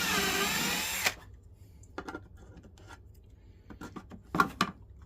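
A power drill running under load, its pitch sagging as the bit bites through the panel, then stopping about a second in. A few light clicks and knocks of handling follow.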